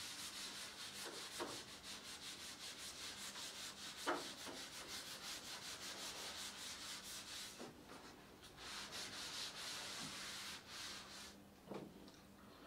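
Faint, rhythmic back-and-forth rubbing on a writing surface, about five strokes a second, stopping about seven and a half seconds in. Quieter scattered scratches and a few soft knocks follow.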